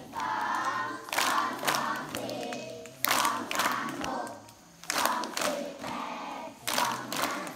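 A large group of children chanting in unison, with sharp hand claps in pairs about every two seconds.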